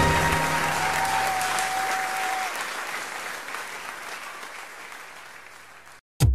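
Applause from a crowd, fading steadily away, with a thin held whistle-like tone for about a second and a half starting about a second in. Near the end it drops out and electronic music with a heavy beat starts.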